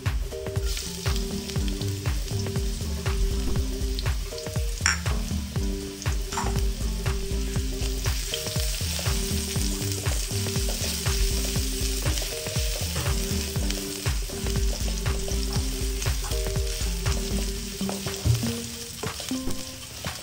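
Minced garlic and julienned ginger sizzling in hot oil in a stainless steel wok, stirred with a wooden spatula that scrapes and taps against the metal. The sizzle picks up about a second in as the ginger goes in, and there is one sharper knock of the spatula near the end.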